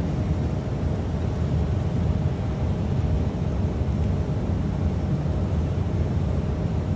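Wind buffeting the microphone: a steady, flickering low rumble with a faint steady hum above it.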